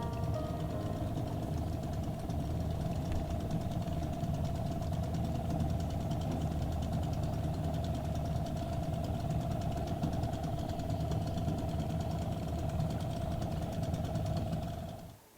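An engine idling steadily, with a constant hum and a fast, even ticking; it stops suddenly near the end.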